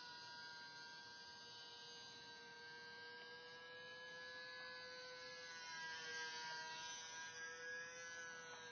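Faint, steady whine of a model seaplane's motor and propeller in flight, its pitch rising and falling gently.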